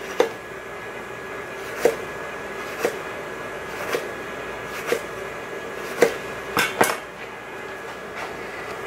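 Kitchen knife slicing a lemon, its blade knocking on the cutting board about once a second, about eight knocks in all, over a steady background hum.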